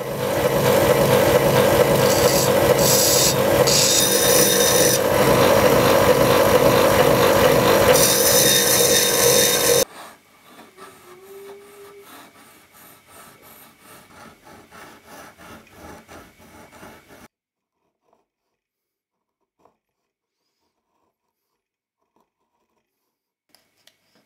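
A steel V-chisel edge being sharpened on an abrasive stone: about ten seconds of loud, steady rasping that stops suddenly, then quieter back-and-forth scraping strokes on the stone that die away. A few faint ticks follow near the end.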